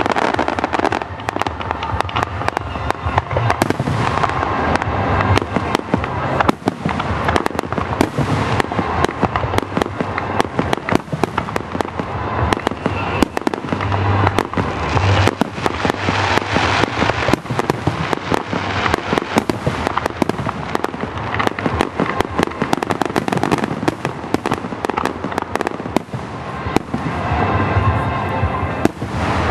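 Aerial fireworks display: shells bursting one after another, with dense, continuous crackling and popping throughout.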